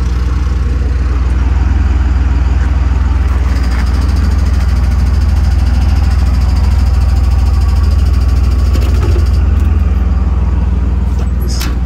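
Freightliner MT-55's 5.9-litre Cummins inline-six diesel idling steadily, a deep even drone. A faint steady high whine runs through the middle, and a couple of light clicks sound near the end.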